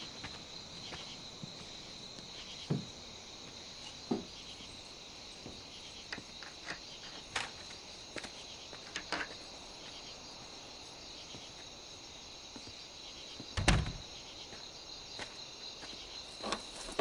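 Crickets chirping steadily in the night, with scattered soft knocks and clicks, and a door thumping shut about fourteen seconds in.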